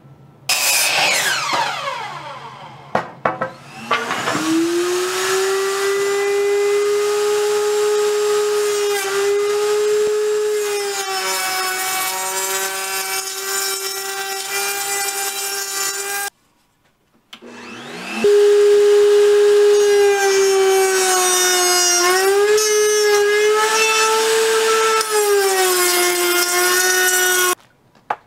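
A miter saw blade winds down after a cut. Then a router in a router table spins up and runs with a steady high whine, its pitch dipping briefly as wooden slats are fed past the bit. It shuts off about 16 seconds in, starts again a second later, and runs with more dips under load until just before the end.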